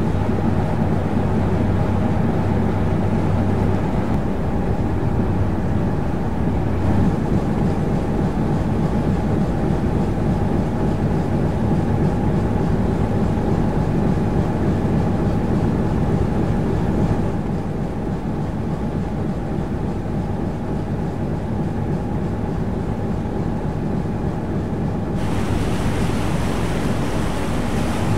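Diesel engine of a 1948 single-screw harbour tug running steadily, heard from on deck, with wind on the microphone. A hiss of rushing water along the hull comes up near the end.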